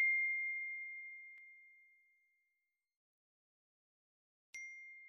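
Bright ding sound effect ringing out on one high pure tone and fading away over about two seconds, then a second, quieter ding about four and a half seconds in.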